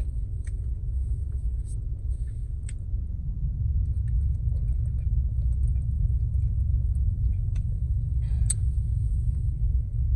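A parked car's engine idling, heard inside the cabin as a steady low rumble, with a few faint clicks scattered over it.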